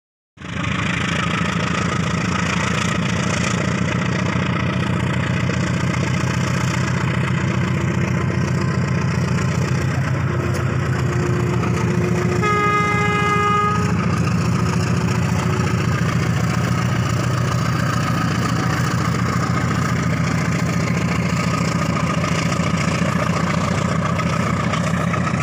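Diesel locomotive running steadily as it hauls a passenger train past, with one horn blast of a bit over a second about halfway through.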